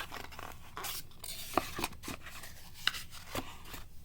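Packaging being handled during an unboxing: rubbing and rustling of cardboard and paper, with several sharp clicks and taps.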